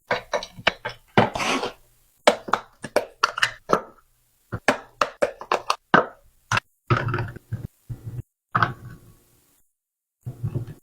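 Quick irregular runs of sharp knocks, taps and clatters, like drink containers and packages being handled and set down while a mini fridge is restocked, with short silent gaps between them.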